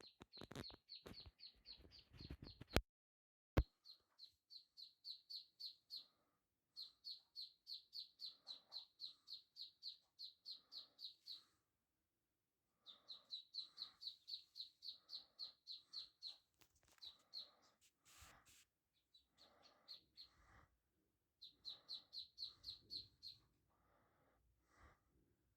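Three-day-old ducklings peeping: long runs of short high calls, several a second, with pauses between runs. Two sharp clicks about three seconds in.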